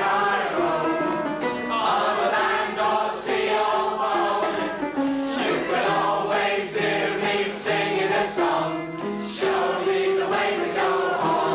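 A mixed chorus of men and women singing an old-time music-hall singalong together, accompanied on an upright piano.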